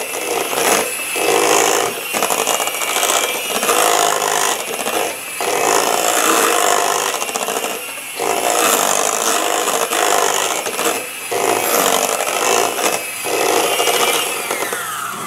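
Electric hand mixer running, its beaters churning and scraping through a thick, lumpy mash of cooked cauliflower and cheese in a stainless steel bowl, with brief dips every few seconds. Near the end the motor winds down, falling in pitch.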